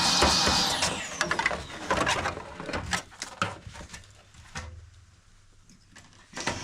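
A cordless electric cleaning tool's motor runs with a loud rush of air, cuts off under a second in, and winds down with a falling whine. Scattered clicks and knocks follow, with a sharp click near the end.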